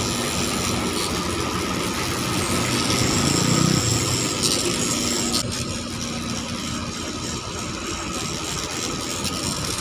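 Rotary grinding tool running steadily while porting a scooter cylinder head's intake port, grinding away metal and carbon; its high hiss thins out about halfway through.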